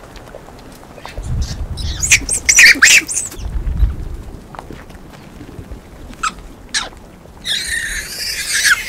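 Japanese macaques calling: a burst of shrill, pitch-bending squeals about two seconds in, two short calls around six seconds, then a harsher, hissy stretch near the end.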